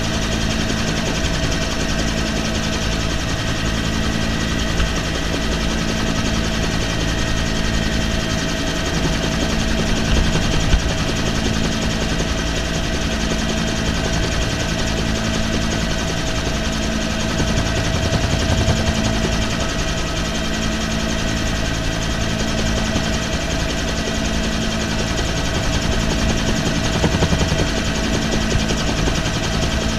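Helicopter in flight, heard from its open cabin door: steady rapid rotor thudding with a constant turbine whine.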